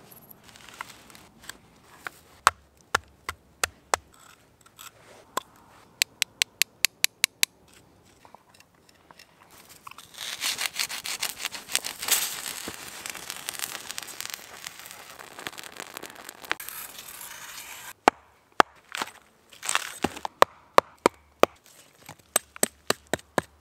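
Scattered small taps and a quick run of sharp ticks, then for about six seconds a dense crackling hiss as a wooden stick is ground into potassium permanganate and the mixture ignites. In the last few seconds, sharp strikes of a blade splitting a birch log.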